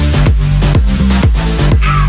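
Background dance music with a steady beat and bass line.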